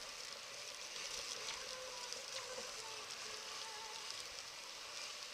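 Steady hiss of wind and rushing water around a sailing yacht under way in choppy sea.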